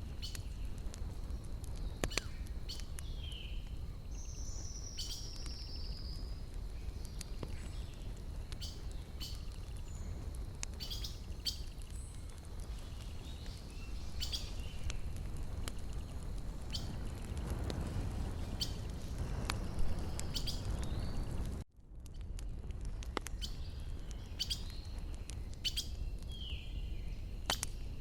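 Wood fire crackling with scattered sharp pops over a low steady rumble, while small birds chirp now and then, one with a short falling trill. The whole sound cuts out for a split second about three-quarters of the way through.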